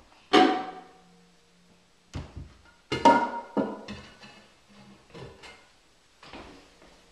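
Porcelain toilet tank lid knocking and scraping against the tank, with several sharp clunks that ring briefly; the loudest come about a third of a second in and about three seconds in.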